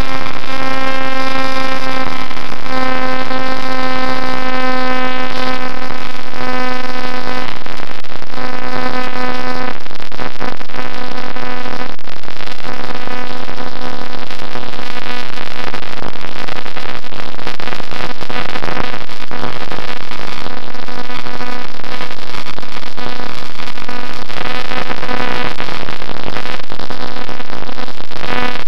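Electric motor and propeller of a Bixler model plane running steadily, a loud buzzing hum under rushing wind, heard through a camera mounted on the plane. The hum is strongest for the first ten seconds or so, then fades under the wind rush.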